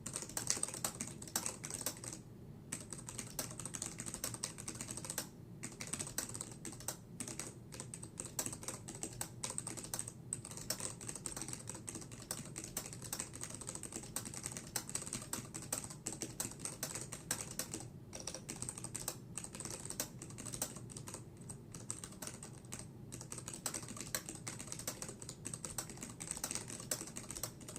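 Data911 TG3 keyboard being typed on continuously, its Cherry MX Black switches working with rubber domes stacked on top of them. The keystrokes come in a rapid stream with a few short pauses.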